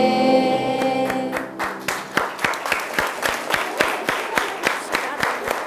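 A group of schoolchildren singing together hold the final note of a song, which ends about a second in; then applause follows, with claps about four a second.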